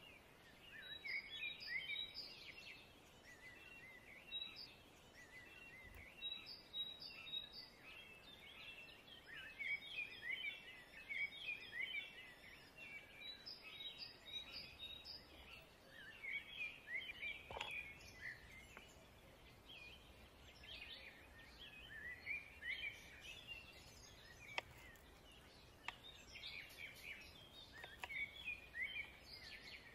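Small songbirds chirping: many short, high chirps in quick runs that come and go over a quiet outdoor background. A few faint taps sound in the second half.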